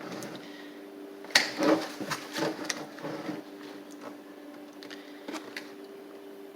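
Knocks and rustles from a cardboard fan box being handled and turned over, clustered in the first half with one more knock later. A faint steady hum runs underneath.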